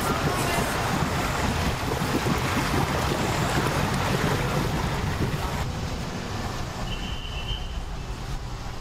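Small motorboat's engine running at low speed as the boat pulls away, mixed with wind on the microphone. The sound thins out about six seconds in, and a short high tone follows.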